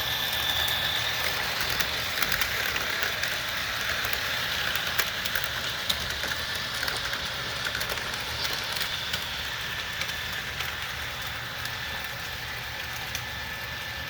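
HO scale Atlas Dash 8-40CW model locomotive running on DCC, its sound decoder playing a steady diesel engine sound through a small speaker, with scattered light clicks.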